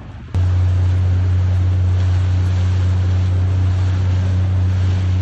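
A boat's motor running at a steady low hum, with water noise; it cuts in abruptly just after the start.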